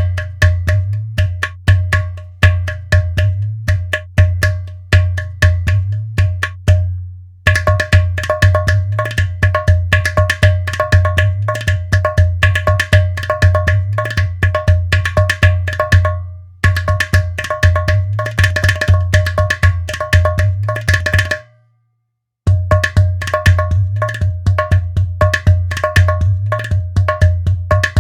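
Sampled Indian hand-drum rhythm from the Native Instruments Discovery Series India Kontakt library: fast, dense strokes over a deep bass tone, with a ringing pitched drum head above. The pattern changes a few times and breaks off for about a second just after 21 seconds, then starts again.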